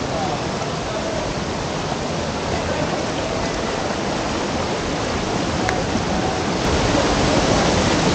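Rushing water of a rocky mountain stream, a steady hiss that grows louder near the end as a small cascade comes close.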